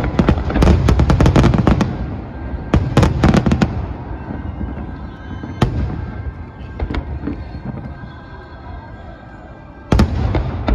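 Aerial fireworks shells bursting: a dense run of sharp crackling reports for the first two seconds, another cluster around three seconds in, and a single sharp bang near six seconds. After a lull, a heavy boom comes about ten seconds in.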